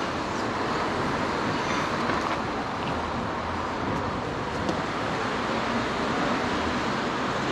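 Outdoor street ambience: a steady hum of road traffic from passing cars.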